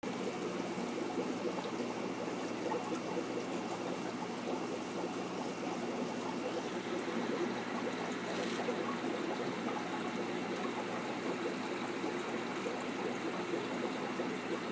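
Aquarium water circulating steadily, the continuous trickle of a filter or pump return, with a faint tick about eight seconds in.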